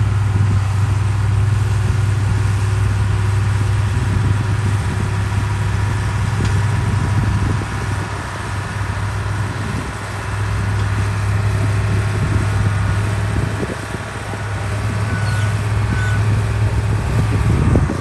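Diesel engine of heavy earthmoving machinery working, a steady low hum that dips briefly in loudness a few times as the load changes.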